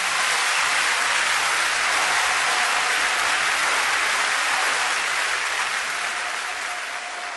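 A large audience applauding, a dense steady clatter of many hands clapping that begins to die away near the end.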